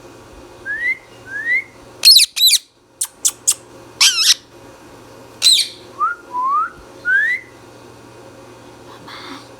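Indian ringneck parakeet making short rising whistles, broken by loud, shrill screeching calls about two seconds in and again around four and five and a half seconds, with a few sharp clicks in between.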